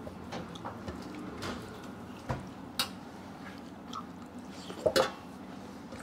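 Eating by hand from a metal plate: fingers mixing and scooping soft food, with chewing and a few sharp clicks and taps against the plate, the loudest about five seconds in.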